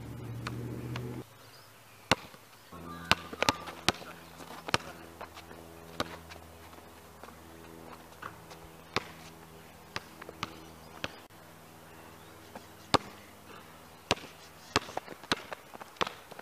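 Basketball play on an asphalt court: a ball bouncing and shoes scuffing give sharp, irregular thuds and slaps, a few a second at the busiest, with gaps between.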